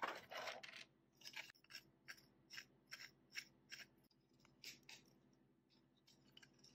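Faint plastic clicks, about two to three a second with a pause in the middle, as the parts of a 3D-printed carbon-fibre PLA clamp are handled and fitted together by hand.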